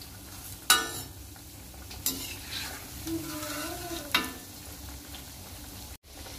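Corn cutlets deep-frying in hot oil in a metal kadhai, a steady sizzle, with a perforated metal spatula knocking against the pan three times as they are turned over.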